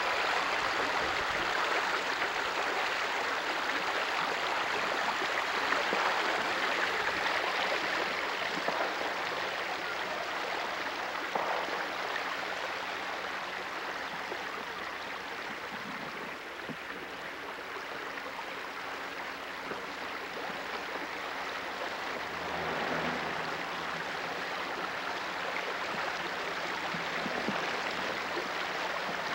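Stream water rushing steadily through a narrow channel.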